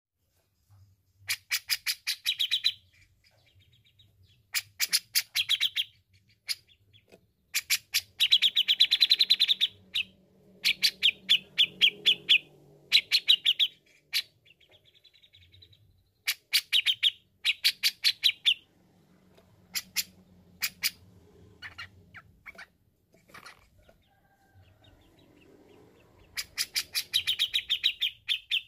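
Grey-cheeked bulbul (cucak jenggot) calling in repeated bursts of rapid, evenly spaced chattering notes. Each burst lasts one to two seconds, with short pauses between them.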